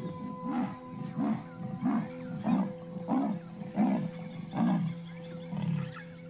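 A female leopard giving its sawing call: a regular series of about eight deep grunting strokes, roughly one and a half a second, the last one lower and longer. It is a mother leopard calling for a cub she has lost.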